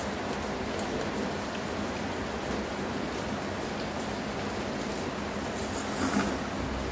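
Steady hiss of rain, with a short slurp of noodles about six seconds in.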